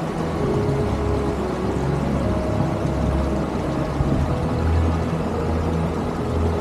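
Background music: sustained notes that shift now and then over a deep, steady low drone.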